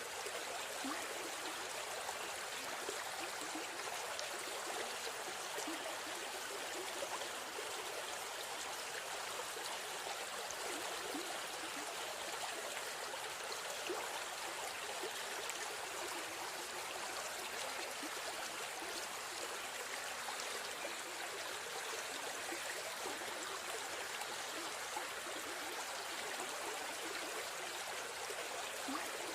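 River stream flowing and babbling steadily, an even rushing of water with small splashes, mostly in the middle and high range and little low rumble.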